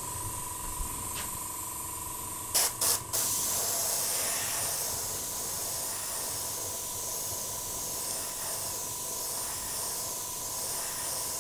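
Airbrush spraying paint in a steady high hiss, with three short clicks about two and a half seconds in.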